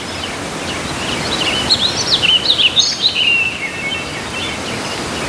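Steady hiss of running water washing mud off a plastic toy, with a flurry of quick, high chirps in the middle.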